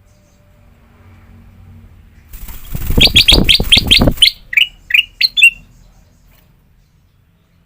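Kutilang emas, a bulbul, singing loudly: a rapid run of about six notes with a heavy low rumble beneath them, then four short chirps.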